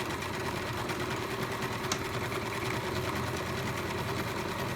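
Singer 5137 sewing machine stitching steadily in reverse with its reverse button held down.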